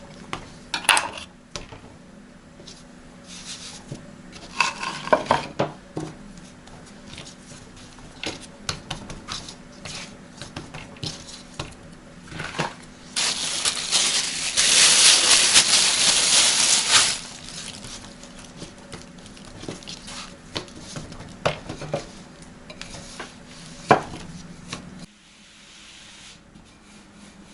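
Kitchen clatter of dishes, pots and cutlery: scattered clinks and knocks, with a loud steady hiss lasting about four seconds in the middle. A low steady hum stops near the end.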